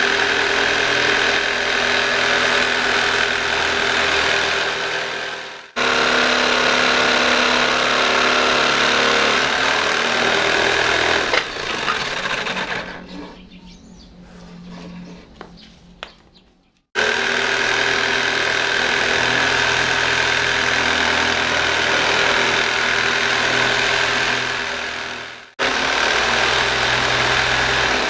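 An electric drill clamped in a homemade wooden drill press stand, its motor running with a steady whine while a board is worked under the bit. The sound breaks off and resumes abruptly three times, and it dies away for a few seconds around the middle.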